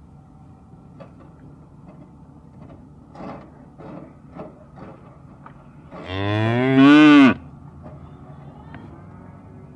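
A cow mooing once, a single loud call of just over a second whose pitch rises and then eases down, about six seconds in. Faint short sounds come before it.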